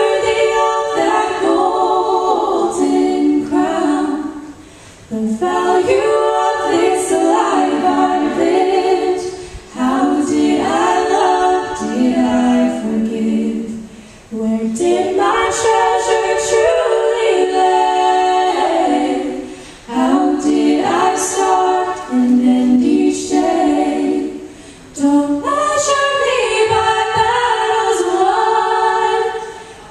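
Female vocal group singing a worship song in harmony a cappella, in sung phrases of several seconds with short breaks between them.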